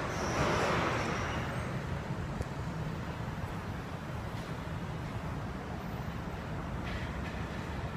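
Street traffic: steady road noise, with one vehicle passing loudest in the first second.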